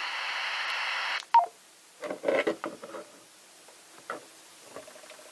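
BaoFeng UV-5R5 handheld radio giving a steady static hiss from its speaker, which cuts off abruptly about a second in. A short electronic beep follows, then a few brief electronic tones and clicks of its keys.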